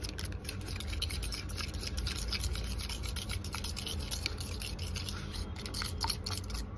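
Raw eggs with chopped onion being beaten by hand with a metal utensil in a plastic bowl: rapid, continuous scraping and clicking of the utensil against the bowl as the batter is whisked.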